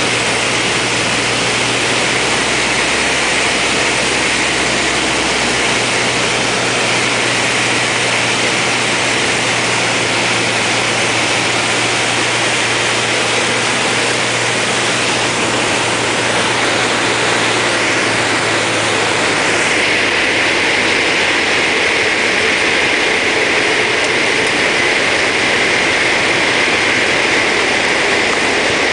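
Small Cessna's piston engine and propeller droning steadily, heard inside the cockpit with a loud rushing hiss. About two-thirds of the way through the low hum drops away and the hiss brightens.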